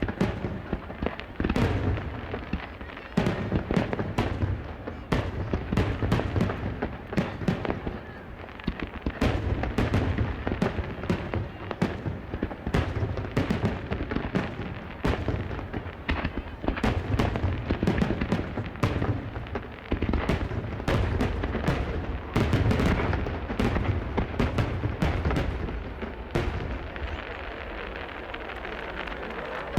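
Star mine fireworks barrage: a dense run of rapid-fire shell launches and bursts, booms overlapping with continuous crackling. The bursts thin out and the sound drops in the last few seconds.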